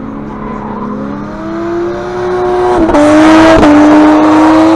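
A car engine revving up hard to high revs and held there at full loudness, with a hiss of tyre noise joining in about three seconds in as the car spins its wheels or drifts.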